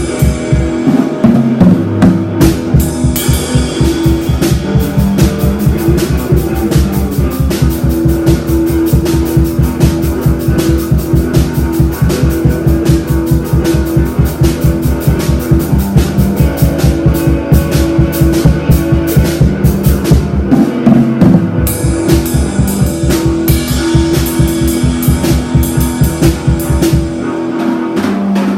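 Rock music on a drum kit with guitar: fast, steady drumming over held guitar notes. The kick drum drops out briefly about 21 seconds in and again near the end.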